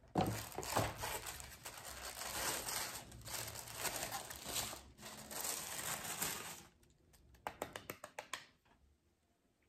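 Tissue paper crinkling and rustling as it is unfolded and handled, followed about seven seconds in by a short run of light taps.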